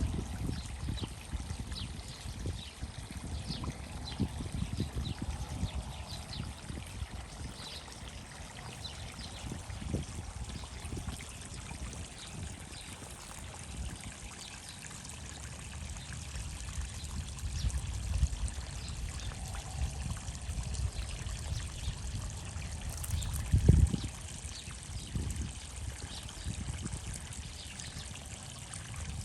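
Steady trickling of water over a low, fluctuating rumble, with a single thump about 24 seconds in.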